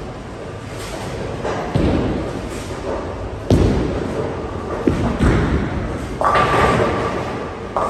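Bowling alley sounds: bowling balls thudding down onto the lanes several times over a constant rolling rumble, then a clatter of pins about six seconds in.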